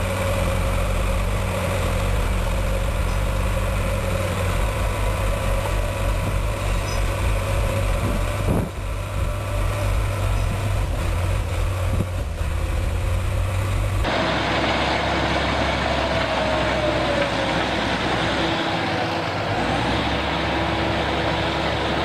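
Heavy machinery's engine running steadily at a low idle. About two-thirds of the way through it changes abruptly to a noisier engine sound with a whine that rises and then falls.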